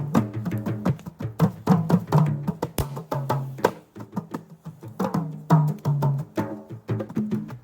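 Hand drums played in a quick rhythm, several sharp strikes a second, along with music that carries low pitched notes.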